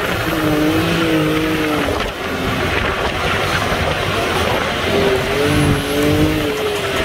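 Side-by-side UTV engine running under load on sand dunes, its note wavering up and down in two stretches, early on and again past the middle, over a steady rush of wind and driving noise.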